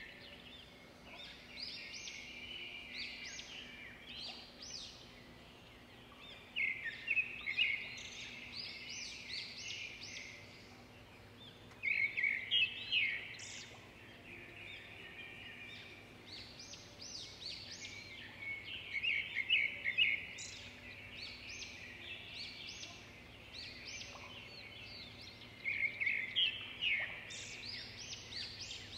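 Songbirds singing. A loud trilled phrase comes about every six to seven seconds, with scattered chirps in between, over a faint steady low hum.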